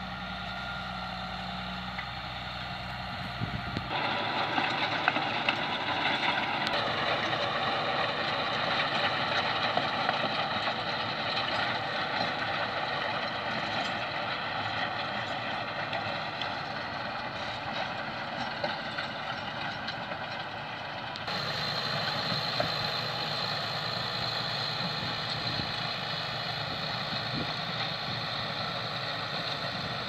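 Tractor engine running steadily under load as it pulls a plough and then a rotavator through the soil. The sound changes abruptly three times, about 4, 7 and 21 seconds in.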